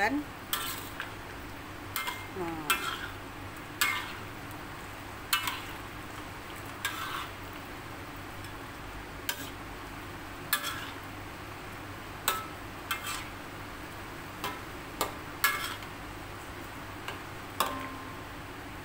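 A metal spatula scraping and knocking against a metal wok as it stirs chunks of chicken and pumpkin through a coconut-milk gravy. The strokes come irregularly, one every second or two, over a steady low hiss.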